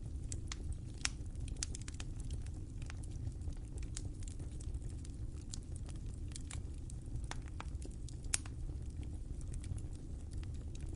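Fire crackling: irregular sharp snaps and pops over a steady low rumble, with two louder pops about a second in and about eight seconds in.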